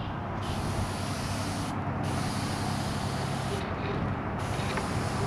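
Airbrush hissing as it sprays paint, cutting off briefly twice and starting again, over a steady low hum.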